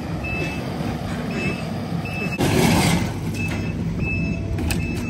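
Takeuchi compact track loader's diesel engine running, with its backup alarm beeping repeatedly as it reverses. A brief loud rush of noise comes about halfway through.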